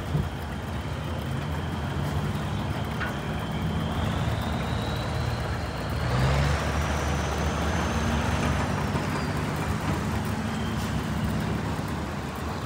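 Engines running steadily, with a thin high whine that climbs about halfway through, holds, and falls back near the end.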